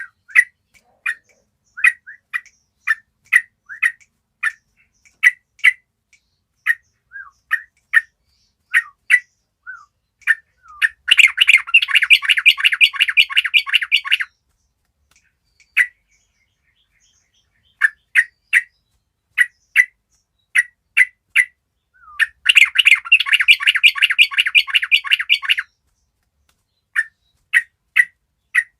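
A group of yellow-vented bulbuls (trucuk) calling. Their short sharp chirps come once or twice a second, and twice the birds break into about three seconds of dense chattering.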